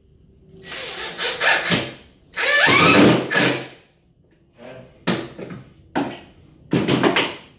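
Cordless drill driving a screw through a wooden strip into plywood, in several short bursts with clicks between them; the longest and loudest burst, rising in pitch, comes about two and a half seconds in.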